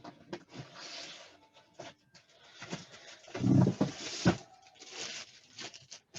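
Handling noise from plastic-encased graded comic books (CGC slabs) and their sleeves: scattered clicks and short plastic rustles, with a heavier knock about three and a half seconds in.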